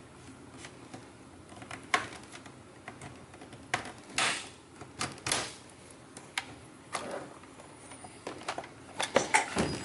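Plastic pry tool working around the edge of an HP 15-ab173cl laptop's plastic base, with irregular clicks and snaps as the case prises apart, and a quick flurry of them near the end.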